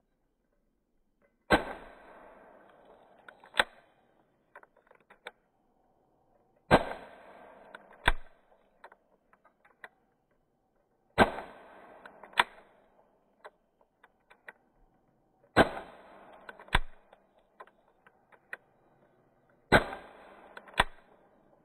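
4.5 mm pistol fired five times, about one shot every four seconds. Each sharp crack is followed by a fading rattle, a second click a second or so later, and a few small ticks.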